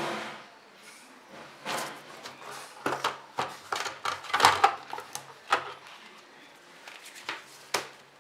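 An irregular series of sharp clicks and knocks from objects being handled, densest in the middle.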